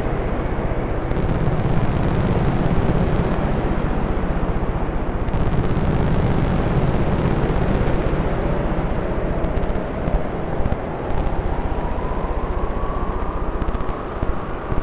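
Noise music from a Bugbrand modular synthesizer run through an Electro-Harmonix Memory Man Hazarai delay: loud, dense, steady noise heaviest in the low end. A tone rises slowly in pitch through the second half, and the noise dips briefly a few times near the end.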